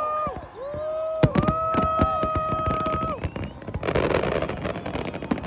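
Fireworks going off in rapid bangs while horns blare long held notes. From about four seconds in, a dense crackling takes over.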